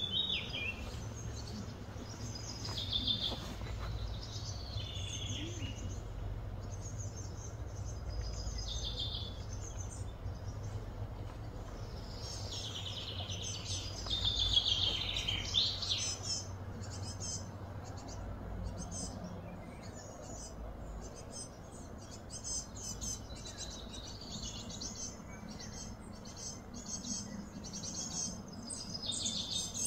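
Birds chirping and calling, with a louder run of quick chirps about halfway through and rapid repeated chirps near the end, over a steady low background hum.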